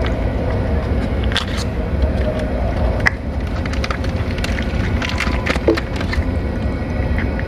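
A cat eating wet food from a metal dish close by: irregular wet clicks and smacks of chewing and licking over a steady low rumble.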